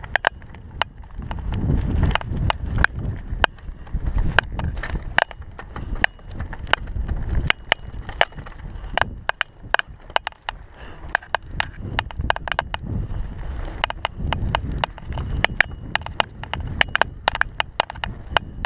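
Mountain bike riding over a bumpy dirt trail: tyres rumbling on the ground in uneven surges, with frequent sharp clicks and rattles from the bike as it hits the bumps.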